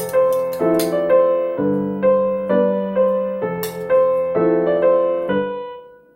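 Background music: a gentle piano melody, notes struck one after another and left to ring.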